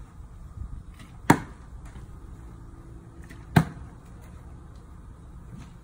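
A plastic water bottle with some water in it landing on a concrete stepping stone with a sharp knock, twice: a little over a second in and again about two seconds later.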